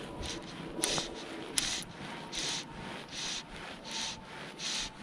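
Fly line being stripped in by hand in short pulls, a rasping hiss about every three-quarters of a second: a strip retrieve of the fly. Two sharp clicks come in the first two seconds.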